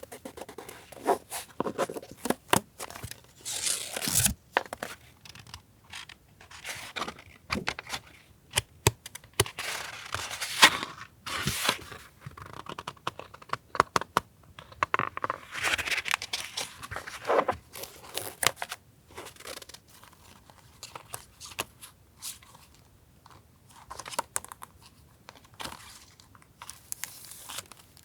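Paper stationery and its packaging being handled: irregular rustling and crinkling swishes with many small taps and clicks.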